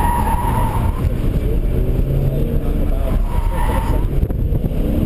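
2006 BMW M5's V10 engine running under hard acceleration and cornering, with the tyres squealing twice: once for about the first second, and again about three seconds in.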